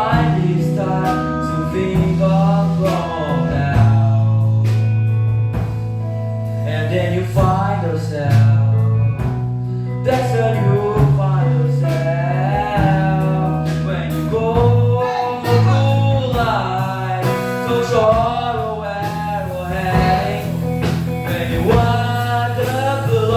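A band playing a song with a singer: held low bass notes under a sung melody, with guitar.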